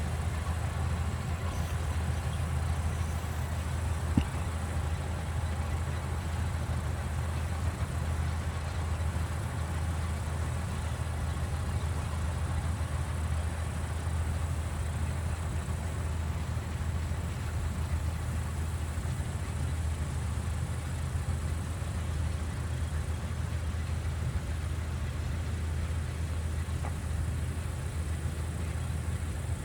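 Old Vistula KZB-3B combine harvester running steadily with a constant low drone, with one short sharp click about four seconds in.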